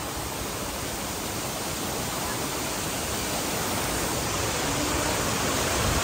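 Waterfall rushing: a steady roar of falling water that grows gradually louder.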